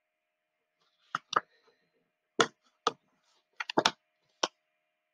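A paperback picture book being handled and lifted up close to the microphone: about eight short, sharp clicks and knocks at irregular intervals, starting about a second in.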